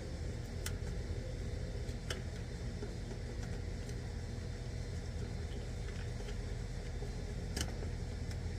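Outdoor AC condensing unit running steadily, a low hum from the compressor and condenser fan, with a few sharp clicks over it.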